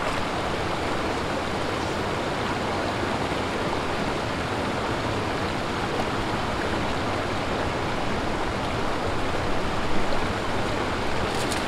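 A small river flowing, a steady, even rush of water with no breaks.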